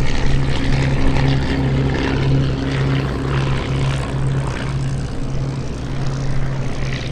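Propeller engines of a Fokker DR.I triplane and a Fokker D.VII biplane flying as a pair, a steady drone with a slow pulsing beat.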